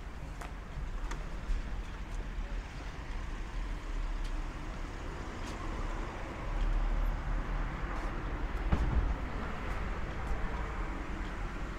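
Street traffic: a car passing on the road, loudest a little past the middle, over a steady low rumble.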